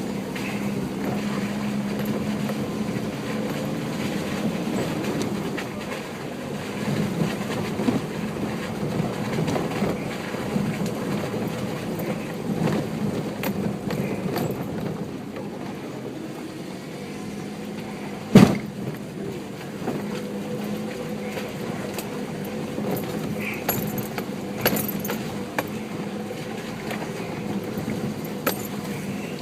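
A four-wheel-drive vehicle crawling over a rocky track, its engine running steadily at low revs, with scattered small knocks and rattles. About two-thirds of the way through comes a single sharp, loud bang, like the underbody or suspension hitting rock.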